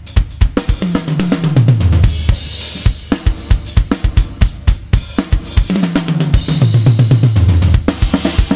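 Drum kit played in a fast groove on kick, snare and hi-hat. Two tom fills roll down in pitch, one about a second in and one a little past halfway, and each ends in a cymbal crash. The snare is a Goliath snare, miked from underneath.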